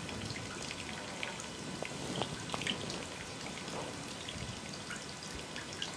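Quiet open-air background: a steady faint hiss with scattered small ticks and taps.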